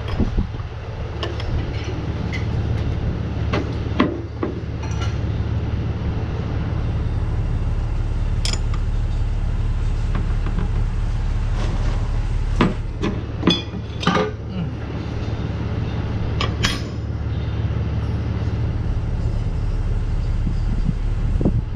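Hand tools clinking and tapping on the metal parts of a Jake brake housing being taken apart, in scattered sharp knocks, with a cluster of several near the middle. A steady low rumble runs underneath.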